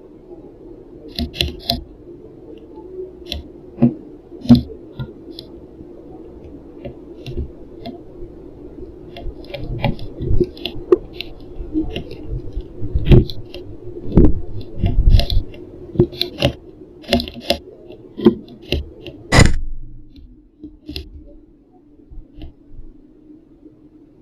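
Irregular sharp taps and knocks close to the feeder webcam's microphone, one to a few a second, over a steady low hum that stops about three-quarters of the way through.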